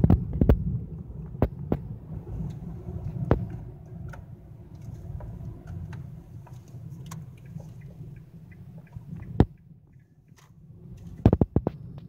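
Low, steady road rumble of a car heard from inside the cabin while driving, with scattered sharp clicks and knocks. The rumble drops briefly near the end before a quick cluster of clicks.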